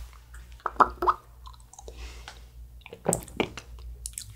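Small wet mouth sounds and lip smacks of tasting, close to the microphone, in two short clusters of clicks about a second in and again about three seconds in.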